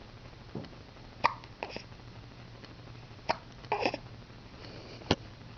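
A young child hiccuping repeatedly: about six short, sharp hics spread over a few seconds, one of them drawn out with a little voice in it.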